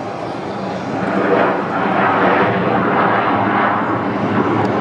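Jet airliner's engines running as it rolls along the runway after landing, a steady roar that grows louder about a second in.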